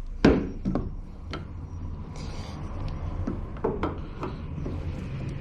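A few short metallic clicks and knocks, the loudest just after the start, as a small wiper-arm puller and tools are handled against the car. A steady low hum runs underneath.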